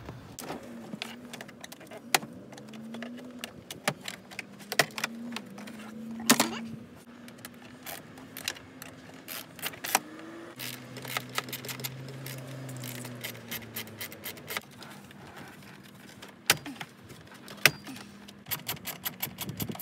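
Small hand tools and hard plastic dash trim clicking, knocking and rattling as the lower centre dash panel is worked loose and its screws are taken out, with a quick run of evenly spaced clicks near the end.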